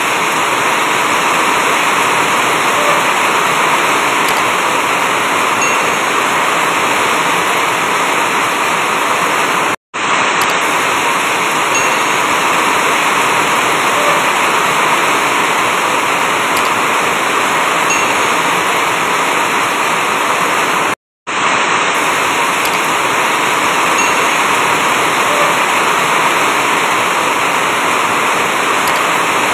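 Heavy rain drumming on an asbestos-cement roof: a loud, dense, steady hiss. It cuts out for a split second twice, about ten and twenty-one seconds in.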